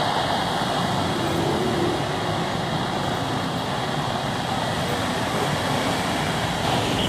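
Steady, unbroken rushing noise of jet engines from aircraft flying low, an Airbus A330 MRTT tanker with Dassault Rafale fighters alongside.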